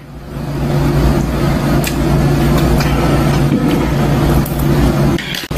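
A steady low machine hum with a noisy rush on top, breaking off for a moment near the end, with a few faint clicks.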